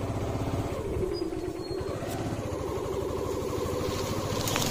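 Motorcycle engine running steadily at low revs as the bike is ridden slowly through rough grass.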